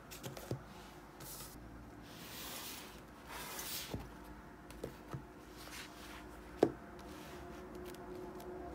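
Paperback manga volumes handled and set down on a desk: quiet sliding swishes of the covers against the surface and light taps as the books land, the loudest tap about two-thirds of the way through, over a faint steady hum.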